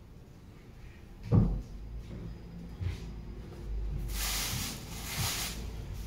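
A dull thump about a second in and a lighter knock a little later, then plastic wrapping rustling as it is pulled off a stainless-steel machine, with a few light knocks.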